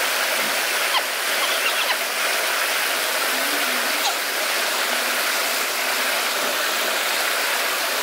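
Stream water pouring over a small waterfall and crashing into the pool below: a steady rushing splash that does not let up.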